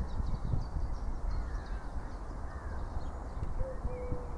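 Birds calling and chirping outdoors over a steady wind rumble on the microphone. Near the end comes a short, then a longer, flat hooting note.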